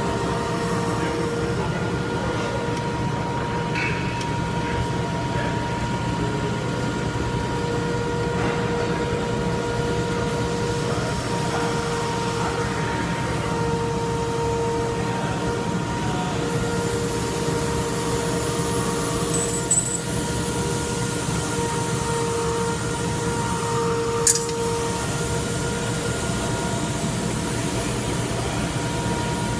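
Steady mechanical hum of shop machinery with a constant high whine over it, and two sharp metallic clicks, one about two-thirds of the way in and one shortly after.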